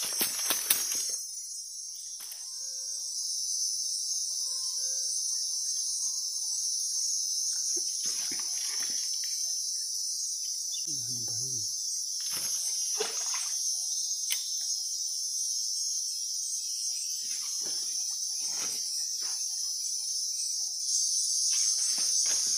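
Steady, high-pitched insect chorus, with a handful of brief knocks and rustles scattered through it.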